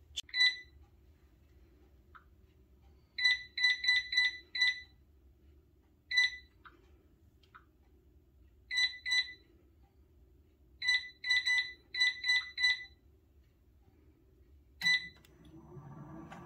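Power XL Air Fryer Pro XL's touch control panel beeping as its buttons are pressed: single short beeps and quick runs of several, as the temperature is stepped to 390° and the timer to 10 minutes. Near the end, right after a last beep, the air fryer's fan starts running with a low hum that grows louder.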